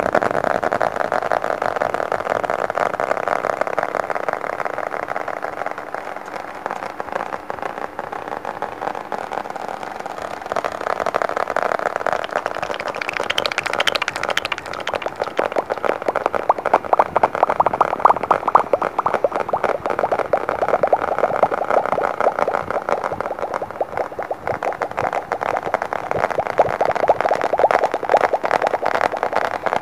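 Rapid tapping of fingertips and nails on a round white disc close to the microphone: a fast, continuous flurry of taps that swells and eases, with a brief brighter, hissier stretch about halfway through.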